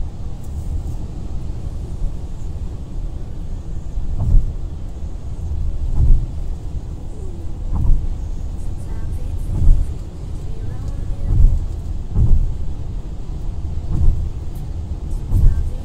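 Car road noise heard from inside the cabin at motorway speed: a steady low rumble of tyres and engine, broken by short low thumps about every two seconds.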